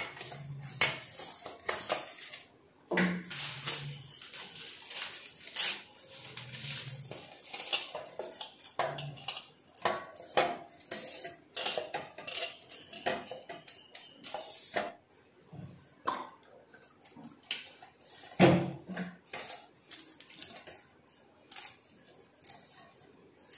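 Irregular light clinks, taps and knocks of hands and a silicone pastry brush working butter paper into a round aluminium cake tin, with one sharper knock about three-quarters of the way through.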